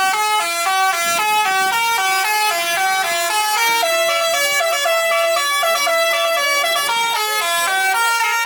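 Indonesian bus telolet horn, a multi-trumpet air horn playing a quick melody of stepped notes, often two or three sounding together, without a break.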